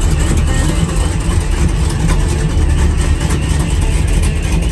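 Pickup truck engines running with a steady low rumble.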